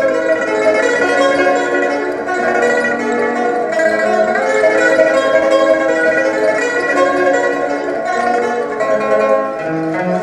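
Four pipas (Chinese lutes) playing together in a dense plucked texture, with fast repeated-pluck notes.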